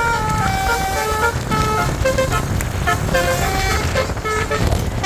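Basuri 'telolet' musical bus horn playing a long melody of quick notes that step up and down in pitch, over a low rumble.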